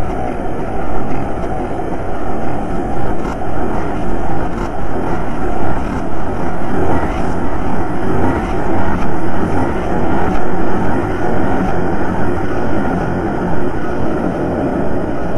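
A dense, churning noise drone from a dark-ambient recording: a loud, steady rumble with most of its weight deep down, swelling and ebbing without a break.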